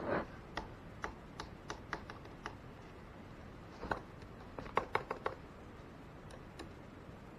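Laptop keyboard keys pressed one at a time in scattered clicks, with a quick run of several presses about five seconds in.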